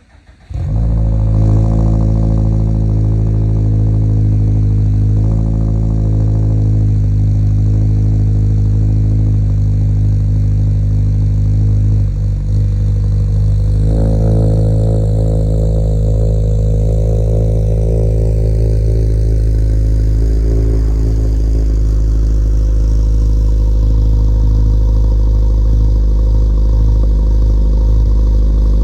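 2022 Subaru WRX's turbocharged 2.4-litre flat-four (FA24) running through a MAPerformance street catback exhaust and P&L catted J-pipe, with a steady deep exhaust note while driving. It cuts in suddenly about half a second in, and the tone shifts about 14 seconds in.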